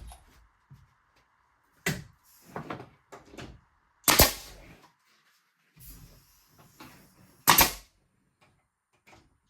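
Nail gun firing nails through the tongue of tongue-and-groove car siding boards, blind-nailing rather than face nailing: three sharp shots about 2, 4 and 7.5 seconds in, with lighter knocks of the boards between them.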